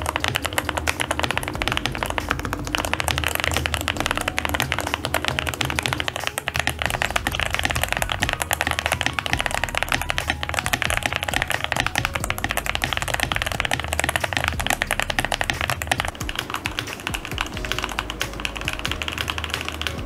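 Fast, continuous typing on a modded Fantech Maxfit81 mechanical keyboard: lubed Moondrop Lunar Light linear switches under Cherry-profile keycaps, with plate foam and polyfill damping the case. Background music plays underneath.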